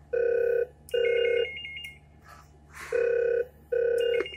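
Desk telephone's electronic ringer sounding in a double-ring cadence from the EPABX: two short warbling rings close together, a pause, then two more. It signals an incoming intercom call to extension 2.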